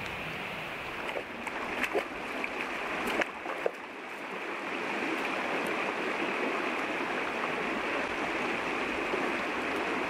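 Steady rush of a shallow river running over stones, a little louder from about halfway in. A few brief cracks and knocks sound in the first four seconds.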